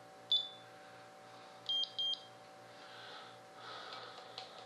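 Electronic beeps from RC radio gear while it is being hooked up: one short high beep, then two quick beeps about a second and a half later.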